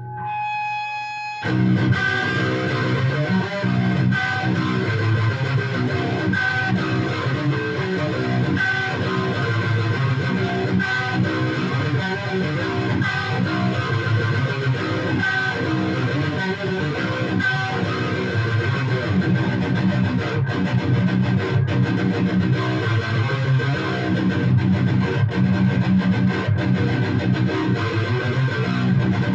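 Electric guitar music: a few held notes, then from about a second and a half in a continuous riff whose figure repeats about every two seconds.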